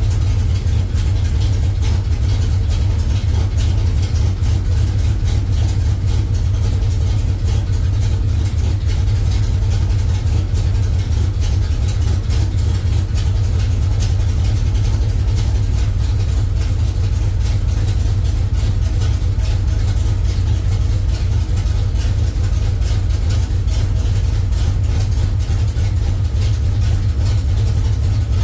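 Truck engine fitted with a FAST self-learning EFI system, idling steadily with a deep, even running sound.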